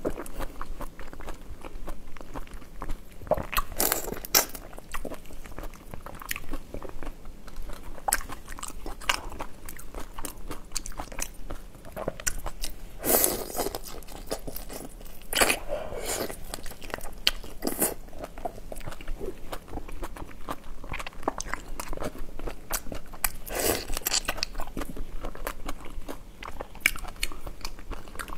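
Close-miked biting and chewing of whole raw shrimp: the shells crunch in louder bursts every few seconds between quieter, steady wet chewing.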